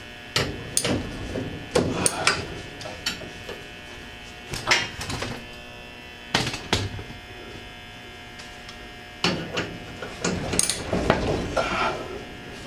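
Steady electrical buzz from a fluorescent work light, broken by intermittent metal clanks and knocks as hand tools work on the roll-up door's spring bar and cables overhead. The knocks come in clusters, with a longer busy stretch near the end.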